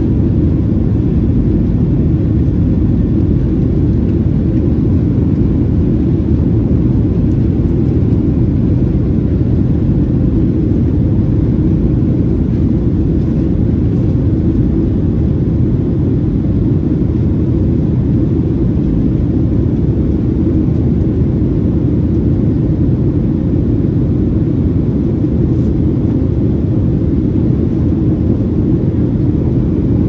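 Steady low rumble of a Boeing 737-700's CFM56-7B engines and airflow heard inside the cabin, with a faint steady hum above it.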